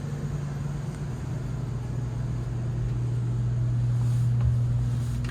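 A steady low mechanical hum that steps slightly lower in pitch about a second in and grows a little louder toward the end.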